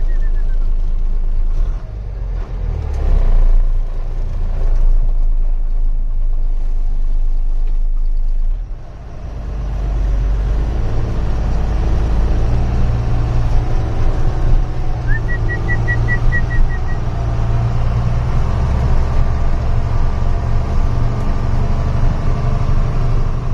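Loaded truck's diesel engine running steadily on the climb, its level dipping briefly about eight seconds in and then pulling harder, with a stronger, deeper note. About halfway through, a short string of rapid high beeps.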